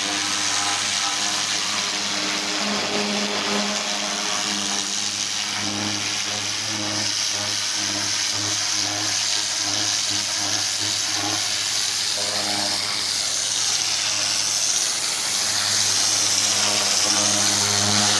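Pressure washer running steadily: an engine-driven pump hum under the hiss of a high-pressure water spray, the spray getting a little louder near the end.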